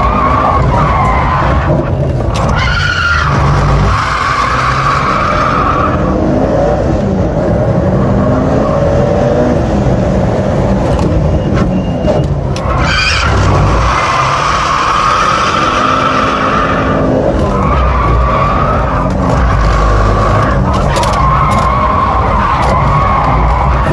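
Inside the cabin of a 400 hp Mitsubishi Lancer Evolution IX, its turbocharged four-cylinder engine revving up and down hard while the tyres squeal in several long stretches as the car slides through slalom turns on worn winter tyres.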